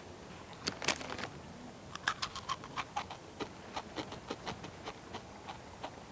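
Loud crunching of Takis rolled corn tortilla chips being chewed close to the microphone: a burst of sharp cracks about a second in, then a run of crunches, several a second, that thins out near the end.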